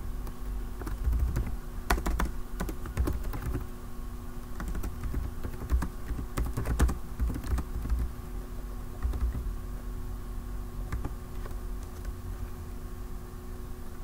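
Typing on a computer keyboard: bursts of key clicks, dense in the first half and sparser toward the end, over a steady low hum.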